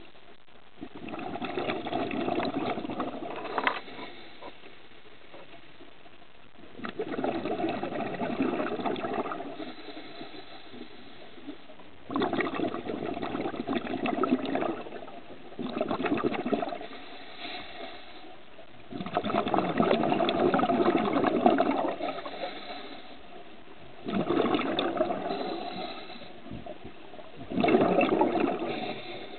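A scuba diver's exhaled bubbles rushing out of the regulator in seven bursts, each a few seconds long, one with every breath out, with quieter gaps between breaths.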